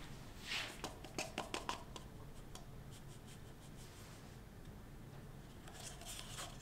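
Faint handling sounds at an espresso setup: a quick run of light clicks and taps in the first two seconds, then soft scratching as ground coffee is tipped from a dosing cup into the portafilter basket, with a few more small clicks near the end.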